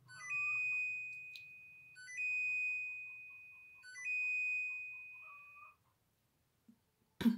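Cosori Turbo Blaze air fryer's end-of-cycle alert: three chimes about two seconds apart, each a quick rising run of notes ending on a long high tone that fades away, signalling that its proof programme has finished. A sharp click near the end.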